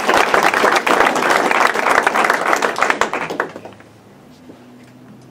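Small audience applauding, the clapping dying away about three and a half seconds in.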